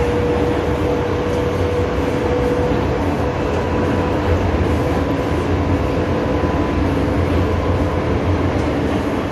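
MTR M-Train electric multiple unit running on the Tsuen Wan Line, heard on board: a steady loud rumble of wheels and running gear with a few flat, even hum tones, one of which fades about three seconds in.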